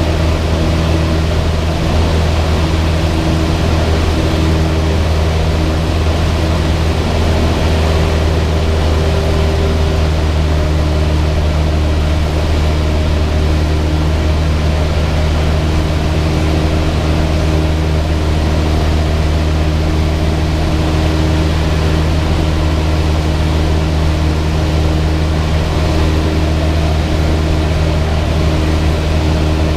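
Cessna 172's four-cylinder piston engine and propeller running at a steady power setting: a constant low drone under a rush of air noise, with no change in pitch.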